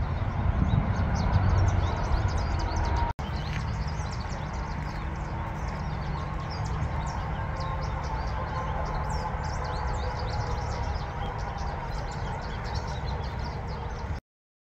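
Outdoor ambience of many small birds chirping over a steady low rumble. It breaks off for an instant about three seconds in.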